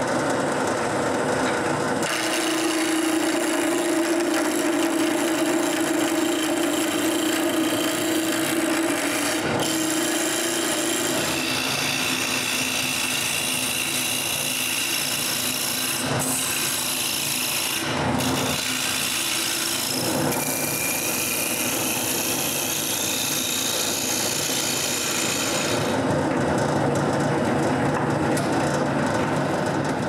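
Wood lathe running while a hand-held turning tool cuts a spinning walnut block into a finial: a steady scraping hiss of the tool on the wood over the lathe's hum, its tone shifting abruptly several times.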